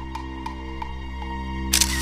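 Background music of steady, held tones, with a short, loud burst of sharp clicks near the end.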